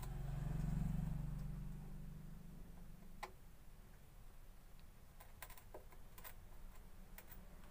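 Faint scattered clicks and taps of a soldering iron tip working pins on a TV circuit board while desoldering a joint, over a low hum that swells and fades in the first two seconds.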